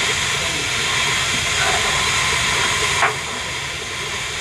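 L&YR Class 27 0-6-0 steam locomotive standing with steam hissing steadily, and a single sharp knock about three seconds in.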